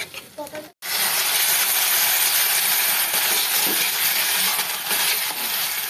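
Taro paste frying in hot oil in a kadai: a loud, steady sizzle that cuts in abruptly after a moment of silence about a second in, with a metal spatula clinking against the pan now and then.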